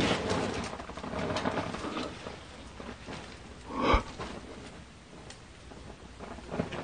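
Faint rustling and shuffling, with a soft knock about four seconds in.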